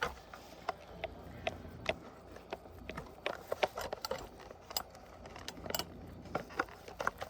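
Scattered light clicks and taps of hard plastic prop parts being handled and pushed onto metal poles, as a leg piece is tried in place on a snap-lock fitting.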